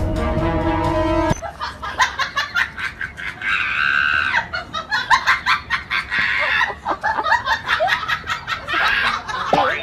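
A husky howling and yelping: a string of short, quick cries broken by longer drawn-out howls, loud throughout. A second of music plays at the start.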